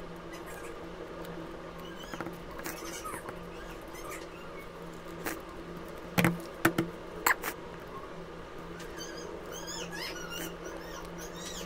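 Paper cut-outs being handled and pressed down onto a paper drawing on a wooden table, with several sharp taps about six to seven seconds in. A steady low hum runs underneath, and faint short chirping squeaks come twice, the second time near the end.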